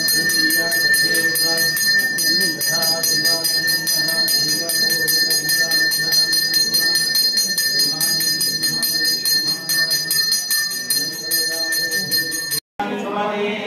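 Brass puja hand bell rung rapidly and without pause, over a crowd's voices. The ringing stops abruptly near the end.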